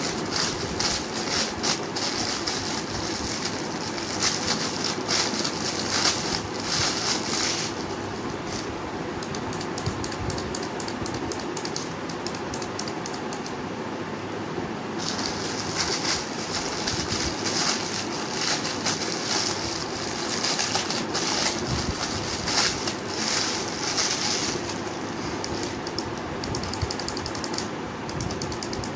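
Clear plastic packaging crinkling and rustling in the hands as wind-up chick toys are unwrapped, over a steady low hum. The crinkling pauses for several seconds about a quarter of the way in, then resumes for a long stretch.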